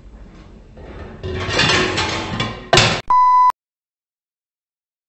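An edited-in sound effect: a rising noisy whoosh that swells and ends in a sharp hit, then a steady high beep lasting about half a second, cut off abruptly into dead silence.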